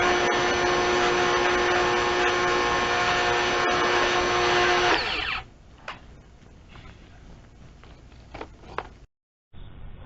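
Electric motor of a power tool running at a steady pitch, then switched off and winding down about five seconds in. After that come a few faint clicks and knocks.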